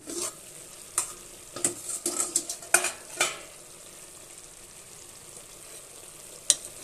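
A glass lid is lifted off a metal pot of chicken curry, with several clinks and knocks of glass and metal in the first few seconds and one more near the end. Between them the chicken, cooking in the water it has released, sizzles with a steady faint hiss.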